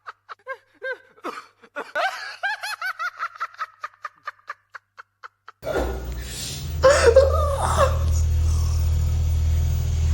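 A person laughing in quick, stifled bursts for about five seconds. Then a sudden switch to a steady low hum, with a voice briefly over it.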